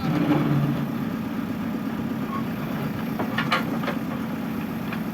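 Truck engine idling steadily, with a brief louder hum in the first second and a few sharp metallic clicks about three and a half seconds in.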